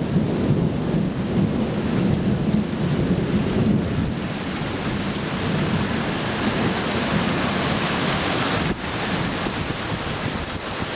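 Heavy rain pouring steadily in a thunderstorm, with a low rumble of thunder rolling through the first few seconds and fading. The rain hiss grows brighter in the second half.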